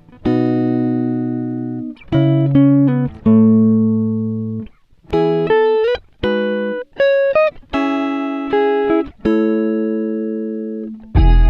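Instrumental background music: plucked notes and chords that ring and fade, a few of them sliding up in pitch.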